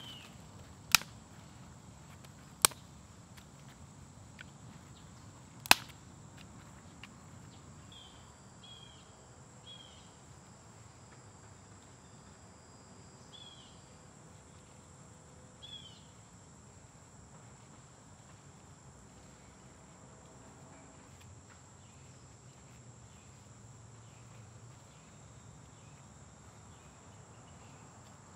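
Woodland ambience: a steady high drone of insects, with a few short falling bird chirps in the middle. Three sharp loud cracks in the first six seconds are the loudest sounds.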